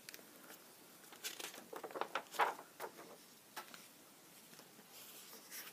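Pages of a picture book being turned and handled: a run of soft paper rustles and light taps lasting about two seconds, loudest in the middle, then a little faint rustling near the end.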